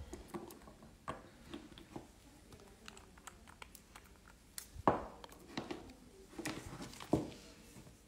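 Scattered small clicks and knocks of gel polish bottles and a plastic nail tip being handled on a table, the loudest a sharp knock about five seconds in.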